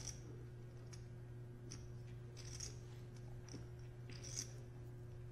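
Poker chips clicking faintly as they are handled at the table, in a few short clusters of clicks over a steady low hum.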